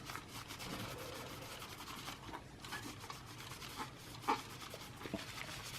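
Paper towel rubbing over a CPU's metal lid, wiping off old thermal compound: soft, steady scrubbing, with a light knock a little after four seconds in.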